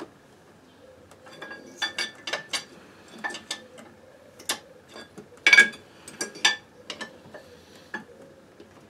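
Metal tools clicking and clinking irregularly as a socket ratchet is worked on a microcar engine's variator nut, with a tyre lever wedged to hold the flywheel; the loudest clink comes a little past halfway.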